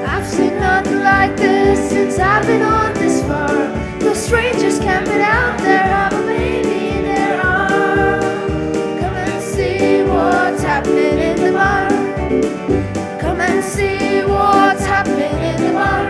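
Boys' choir singing to a keyboard and acoustic guitar accompaniment with a steady beat.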